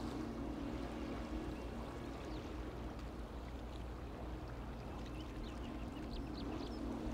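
Sea water washing steadily against the shore or deck pilings, a soft even rush with a low rumble beneath.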